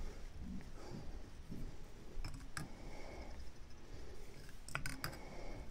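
Faint scattered clicks and light handling noises from hands working thread and materials on a fly clamped in a fly-tying vise, with a few sharper clicks near the middle and near the end.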